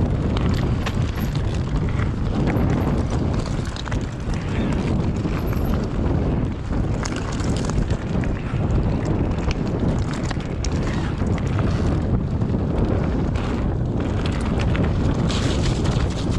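Wind buffeting the microphone and tyres rumbling over the trail as an electric mountain bike is ridden downhill at speed, with many small clicks and rattles from the bike over rough ground.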